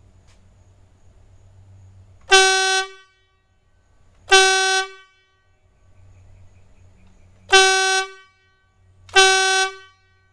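Motorcycle horn sounded in four short blasts of about half a second each, every blast the same single steady note, over an idling motorcycle engine.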